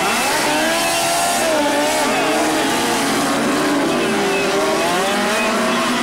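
Several midget race car engines running together, their pitch rising and falling as the cars change speed around the dirt oval.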